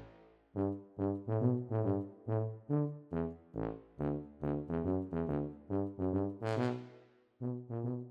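Background music: a bouncy, comic tune of short, detached brass notes, tuba-like, over a low bass line, about two to three notes a second, with a brief break near the end.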